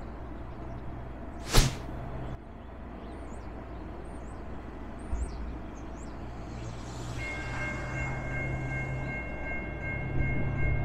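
Norfolk Southern train at a junction: a low diesel locomotive rumble, a single sharp knock about a second and a half in, and from about seven seconds in a steady, high-pitched tone of several pitches held together.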